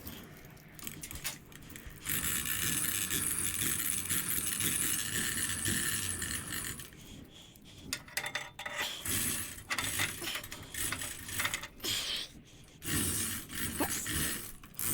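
Metal parts and tools clinking and rattling as they are handled during reassembly, with irregular clicks and scrapes. A steady hiss runs for about five seconds early on before the clinking takes over.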